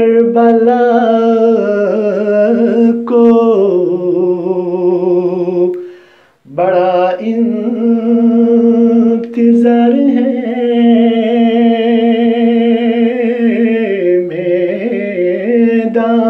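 A man singing an Urdu devotional poem (manqabat) solo, with no accompaniment. He draws out long held notes with wavering ornaments, breaks off briefly about six seconds in, then resumes.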